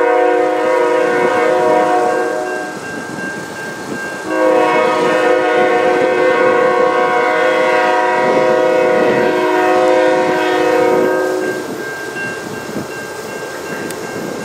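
Nathan K5HL five-chime air horn on a CN ES44AC locomotive sounding two long blasts: the first ends a few seconds in, the second starts about four seconds in and is held for about seven seconds. The approaching train's rumble follows near the end.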